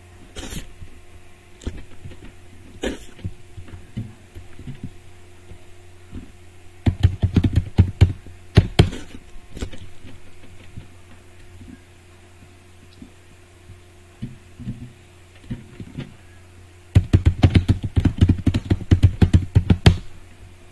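Typing on a computer keyboard in two quick bursts of key clicks, about seven seconds in and again near the end, with scattered single clicks between. A low steady hum runs underneath.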